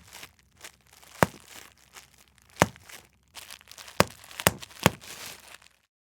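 Large packaging bubble wrap crinkling as it is squeezed, with five sharp pops: single pops about a second and near three seconds in, then three in quick succession near the end.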